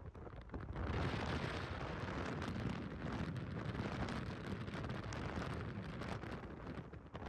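Wind buffeting the microphone: a rumbling, gusting rush that swells about a second in and eases slightly near the end.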